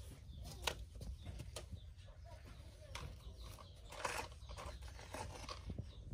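Plastic toy trucks handled in sand: a few sharp clicks and a brief scrape about four seconds in, over a low steady rumble.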